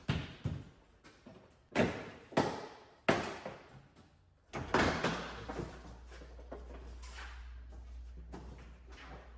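A series of sharp knocks and clunks, about six spread over the first five seconds, followed by a low steady hum.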